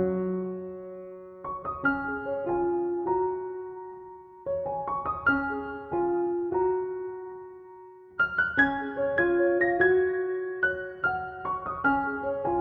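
Background music: gentle piano playing melodic phrases of struck notes that ring and fade.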